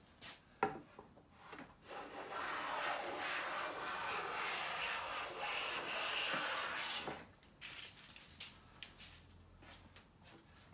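Siegley StS #7 bench plane taking one long shaving along a straight-grained pine board: a steady hiss of the iron cutting that lasts about five seconds and stops abruptly. A sharp knock comes shortly before the stroke, and light ticks follow it.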